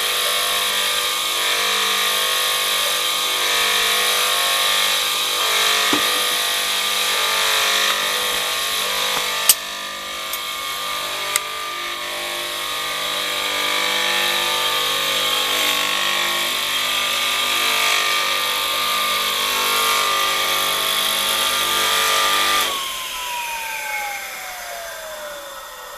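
Benchtop table saw running freely with a steady high whine, then switched off near the end and winding down, its whine falling steadily in pitch and fading. A couple of sharp clicks sound midway.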